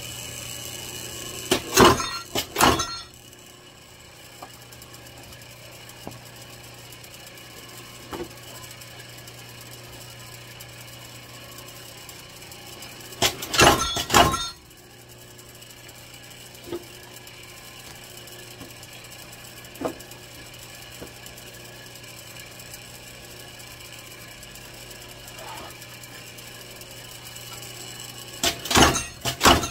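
Herman Schwab 20-ton clicker press cutting leather: three quick clusters of loud clunks as the press head strikes down on the clicker die, roughly every twelve to fifteen seconds, over a steady low hum.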